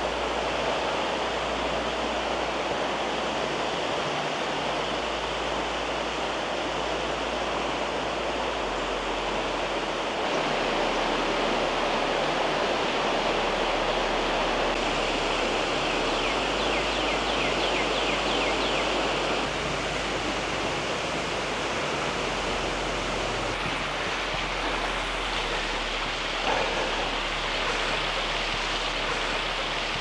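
Steady rush of flowing creek water, Pequea Creek, with a brief faint high trill a little past halfway.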